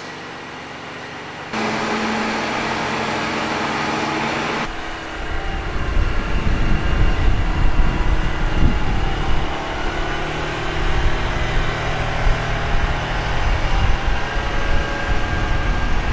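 Valtra tractor's diesel engine running. About one and a half seconds in it steps up to a louder, steady higher note. From about five seconds in it is heard outdoors under a gusty low rumble of wind on the microphone.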